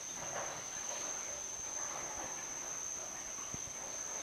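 Steady high-pitched whine over faint background hiss, with one soft low bump about three and a half seconds in.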